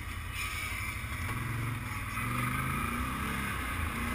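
Quad (ATV) engine running at low revs, picking up a little about halfway through as the machine moves off.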